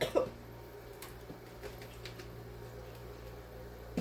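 Quiet room tone with a steady low hum and a few faint clicks, after a brief voice sound at the very start.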